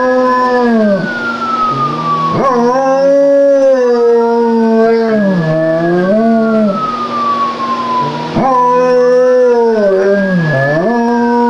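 German Shepherd howling in long wavering wails alongside a siren's slowly rising and falling wail, copying it. The howl breaks off and starts again twice.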